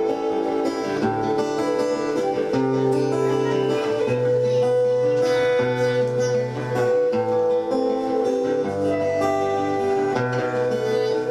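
Instrumental passage of a song: guitar over held notes, with a bass line that steps from note to note about every second.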